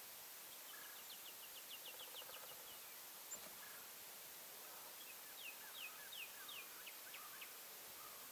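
Faint songbird song heard twice, each a run of short, quickly falling whistled notes, over quiet field ambience. A single sharp click sounds about three seconds in.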